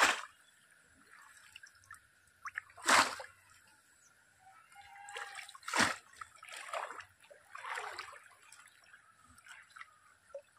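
A bamboo polo fish trap is plunged into shallow muddy water, making three sharp splashes about three seconds apart. Softer sloshing from wading legs and stirred water comes in between, thickest in the second half.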